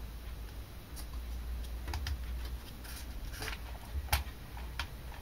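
A few scattered light clicks and taps as hands handle a 1:8 RC car's plastic chassis, over a faint low hum.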